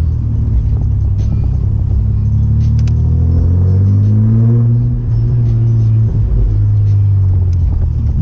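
Chevrolet Omega's 3.0 12-valve C30NE inline-six running through a full 2.5-inch exhaust with two sport mufflers, heard from the moving car. The engine note rises under acceleration from about two seconds in, drops near five seconds, then holds steady at cruise.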